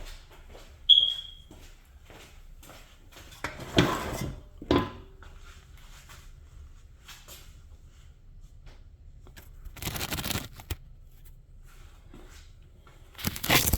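Hand tools clinking and a flathead screwdriver prying and scraping at a stuck cap, in short bursts, with one sharp ringing metal ping about a second in.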